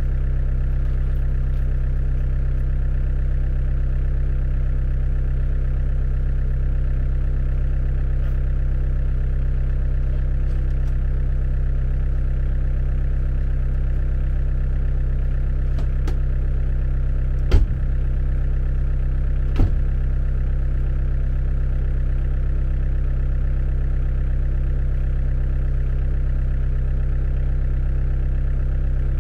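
Excavator's diesel engine idling steadily. Two short sharp knocks sound about two seconds apart just past the middle.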